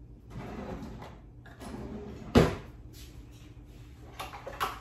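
A kitchen drawer being opened and pushed shut, with one sharp knock about two and a half seconds in and softer rustling around it.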